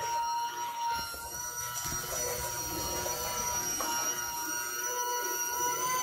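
Clamp-on portable bucket washing machine running, its electric motor giving a steady high whine while it churns soapy water and clothes in the bucket, the rush of the water filling in underneath from about a second in.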